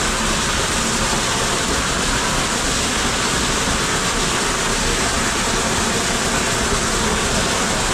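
Gunite (shotcrete) nozzle spraying onto a stone foundation wall: a steady, loud rushing hiss of compressed air driving the sand-cement mix against the stone.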